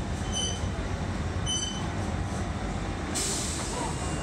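London Underground Central line 1992-stock train rumbling along the platform as it slows to a stop. Two short high beeps come about a second apart, and a sudden hiss of air starts about three seconds in.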